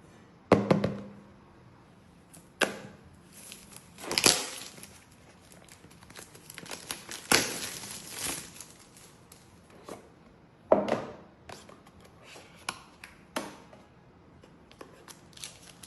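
Handling of a smartphone's retail box and packaging: irregular sharp clicks and knocks, the loudest about half a second in, with a few longer rustling sounds around four seconds and from about seven to eight seconds.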